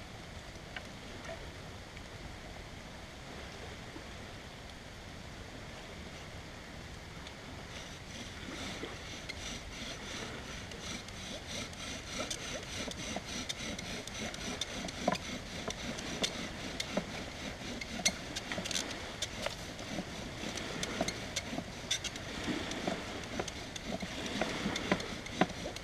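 Bow drill being worked: a wooden spindle spun back and forth in a hearth board, rasping wood on wood to build up an ember. The strokes start about eight seconds in and grow louder and harder toward the end, over a steady background hiss.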